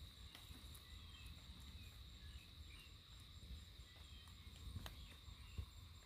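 Near silence: faint outdoor ambience with a steady high insect drone and a low rumble, broken by a single faint click about five seconds in.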